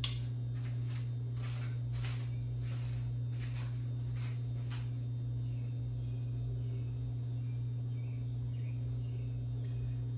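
Hunter Castleton ceiling fan running with a steady low motor hum. Short raspy ticks come about twice a second through the first half, then fade to faint chirps.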